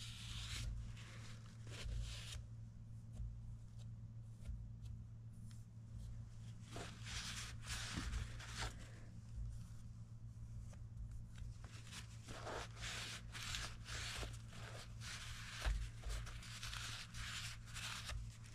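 Shop rag rubbing and scrubbing inside the seal bores of a tractor PTO housing, cleaning them out before new seals go in. The soft wiping sounds come and go in irregular stretches, with a few small clicks, over a steady low hum.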